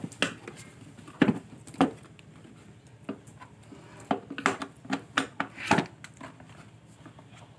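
Plastic housing of a Biosafe Powermax high-pressure cleaner knocking and clicking as it is handled by hand. The knocks are irregular, with the sharpest a little over a second in and another cluster near the three-quarter mark.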